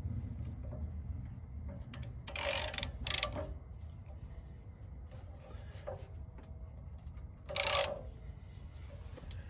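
Socket wrench working the anode rod loose from an RV water heater: three short metallic rasps, about two and a half seconds in, again just after three seconds, and near the end, over a low steady rumble.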